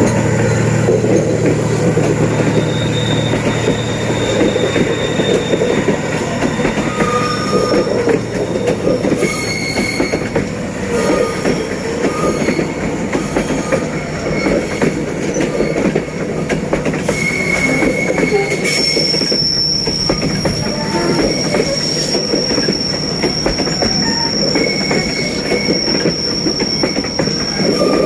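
Passenger train rolling past on the rails, its wheels running with a dense rumbling clatter. High squealing tones from the wheels come and go, and one is held through the last third. A low drone at the start fades within a couple of seconds.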